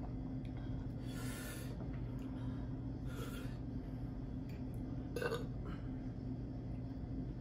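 A person drawing two sharp, hissing breaths in through the mouth against the burn of very spicy noodles, about a second in and again about three seconds in, then a short throaty sound just past five seconds. A steady low electrical hum runs underneath.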